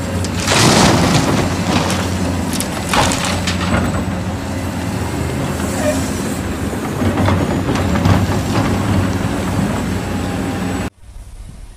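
Heavy diesel earthmoving machinery running steadily under load, with several loud scraping and clanking bursts of rock and steel. The sound drops off abruptly near the end.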